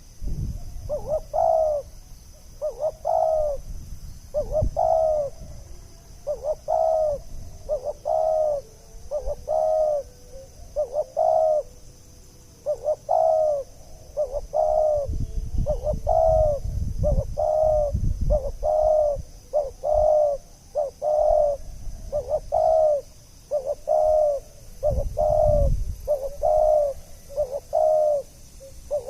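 Spotted dove cooing over and over, a steady series of short coos at roughly one a second, played as a lure call. Low rumbles come in now and then, most strongly about halfway through and again near the end.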